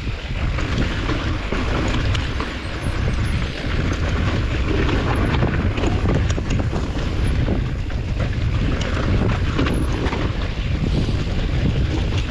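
Wind buffeting the microphone while riding a mountain bike over rock, a steady loud rumble with rapid small clicks and rattles from the tyres and bike on the stone.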